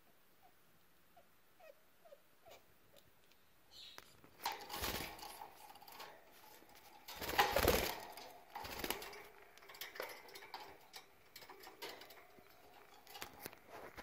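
Caged budgerigars: a few soft, short chirps in the first few seconds, then louder rustling and scuffling with budgie chatter mixed in. The scuffling is loudest about seven seconds in.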